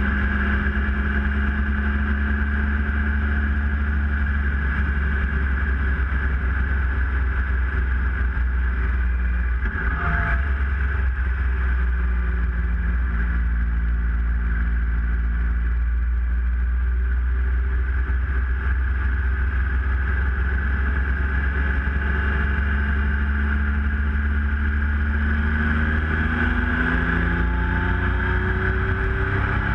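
Triumph Tiger Explorer 1200's three-cylinder engine running on the move, under heavy wind rumble on the microphone. The engine note rises near the end as the bike accelerates.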